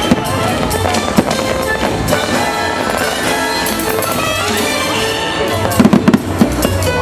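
Fireworks bursting over the show's music: a few single bangs, then a quick cluster of loud bangs about six seconds in.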